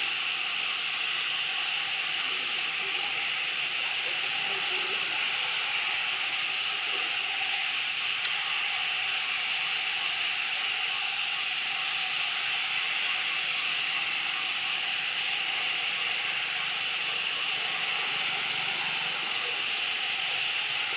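Steady high-pitched hiss that never breaks, with one short click about eight seconds in.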